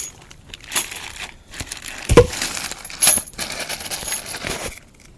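Small metal objects clinking, with a bright ringing clink about three seconds in and a dull thump just before it, among quieter handling rustles.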